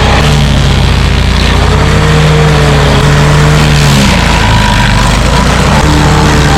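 Wood chipper running loudly, its engine note sagging and dipping around four seconds in and then recovering, as when branches are fed through.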